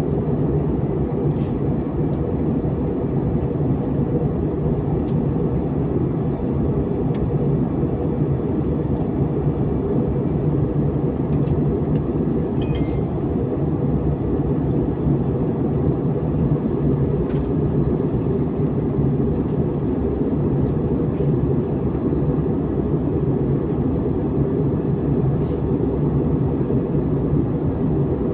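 Steady cabin noise of an airliner in flight: an even, loud low rumble of engines and rushing air, with a few faint ticks.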